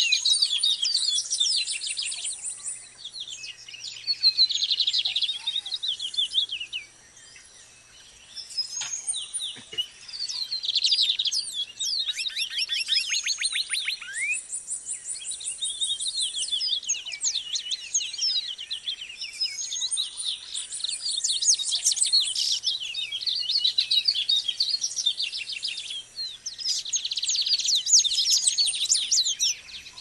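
Recorded chorus of seedeaters, nine species native to Trinidad and Tobago, singing together: many high-pitched, rapid trills and twittering songs overlap densely, with a brief lull about seven seconds in.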